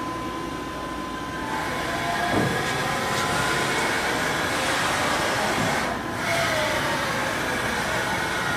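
Haas VF-6/50 CNC vertical machining center running through its motions. The noise rises about a second and a half in, and two falling whines come as the drives slow, with a short dip about six seconds in.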